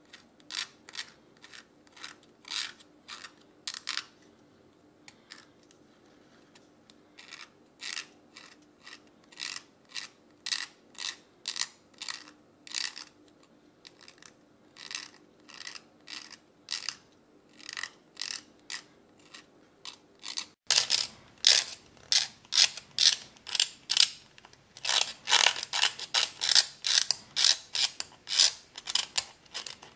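Small steel hand carving tool scraping and cutting into a tagua nut (vegetable ivory) in short, crisp strokes, about two a second. About twenty seconds in the sound breaks off and the strokes come back louder and closer together.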